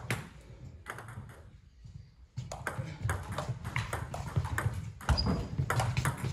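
Table tennis rally: the ball clicks off the bats and bounces on the table in a quick, uneven run of sharp knocks. A couple of lone knocks come first, then a short lull, and the rally starts about two and a half seconds in.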